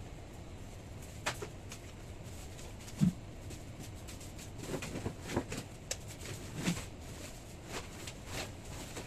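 Light handling taps and clicks of a plastic scraper and hands on a fondant-covered cake and its metal stand, scattered over a steady room hiss, with one duller knock about three seconds in and a cluster of taps a little later.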